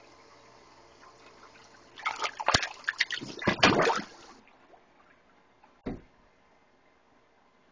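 Water splashing and sloshing as a catfish feeds on bologna at the surface: a flurry of splashes lasting about two seconds, then one short splash a little later.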